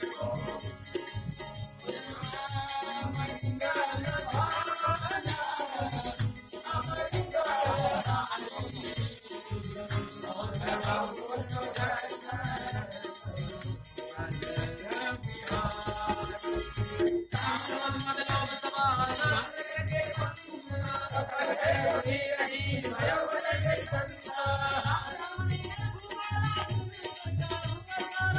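Hindu devotional singing with musical accompaniment: a wavering sung melody over a steady drum beat of about two strokes a second and jingling, rattling percussion.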